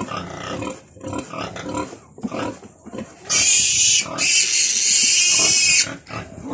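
Newborn piglet squealing in distress while it is held for its umbilical cord to be cut. About three seconds in it breaks into a loud, shrill squeal: two long cries with a brief break between them, ending shortly before the close.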